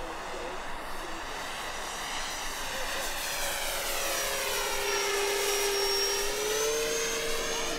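Electric motor and propeller of an E-flite Air Tractor 1.5m RC plane whining in flight as it passes, growing louder as it closes in and peaking about six seconds in. The pitch rises a little near the end.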